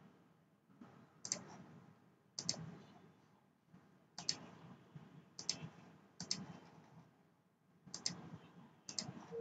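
Computer mouse buttons clicking, seven clicks at uneven gaps of about a second, each a quick press-and-release pair of snaps.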